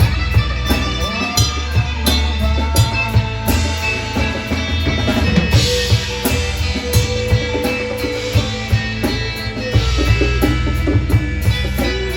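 Live rock band playing an instrumental passage: a drum kit keeping a steady beat under electric guitar lines.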